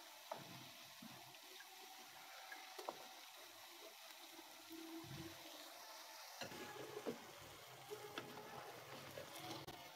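Faint, sparse taps and scrapes of a wooden spatula moving cauliflower and potato pieces in a nonstick pan, a few small clicks spread over a quiet background.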